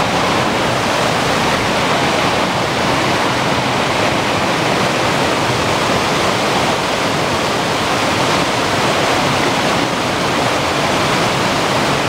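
Waterfall rushing steadily, an even noise of falling water with no break or change.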